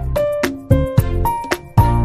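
Background music: a tune of short pitched notes over a steady beat.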